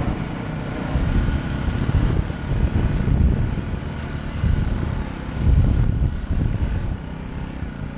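Yamaha WR125 dirt bike's 125cc single-cylinder four-stroke engine running at low speed along a wet, muddy grass track. A low rumble under it swells about three and about five and a half seconds in.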